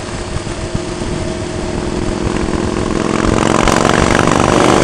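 Motorcycle engine running steadily while riding along at road speed, with wind and road noise; the engine grows louder over the last couple of seconds.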